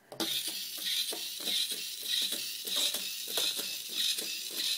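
Hacked Hexbug Spider robot walking on a hard tabletop: its small gear motor whirring under a fast, even clatter of plastic legs and feet. It starts suddenly about a quarter second in.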